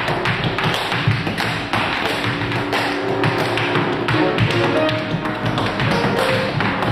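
Tap dancers' shoes striking a wooden studio floor in quick, dense rhythms, with live piano accompaniment.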